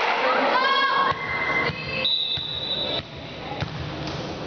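Players calling out in a gym, then a referee's whistle blown once in a single steady, high note lasting about a second, followed by a few soft thuds.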